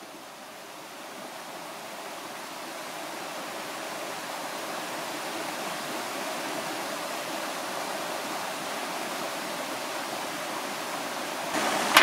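Brook water flowing over rocks, a steady rushing that fades up over the first few seconds and then holds. Right at the end it gets louder and there is a sharp knock.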